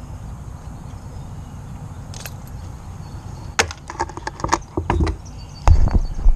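Handling on a kayak: a quick run of sharp clicks and rattles, then a few heavy knocks near the end, over a steady low rumble.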